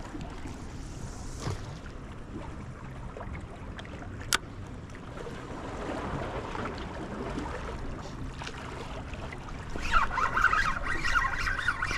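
Wind and water noise at the shore, with one sharp click about four seconds in. Near the end a louder, rapid, high-pitched chattering sound starts and continues.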